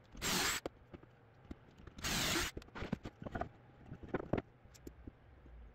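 2x4 pieces being handled on a wooden workbench: two short scrapes about two seconds apart, then a scatter of light knocks and taps.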